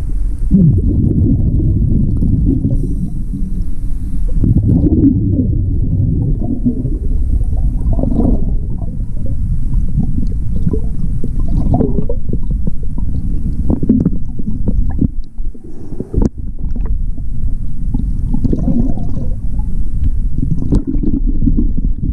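Scuba regulator exhaust bubbles and moving water gurgling and rumbling against a chest-mounted underwater camera as the diver rises to the surface, with scattered knocks.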